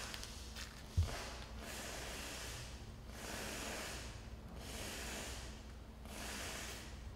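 A person breathing heavily, in five long, even breaths of about a second each. A short low thud comes about a second in.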